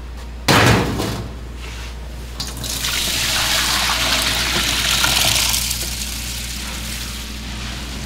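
A sudden loud knock about half a second in, then a few seconds of liquid pouring that swells and fades.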